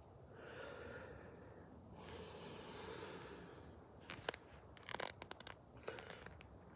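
Faint rushes of breath-like noise close to the microphone, then a few light crunches of dry leaves underfoot from about four seconds in.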